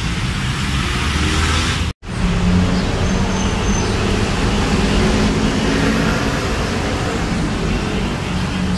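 Steady traffic noise with a low engine hum. The sound cuts out for an instant about two seconds in.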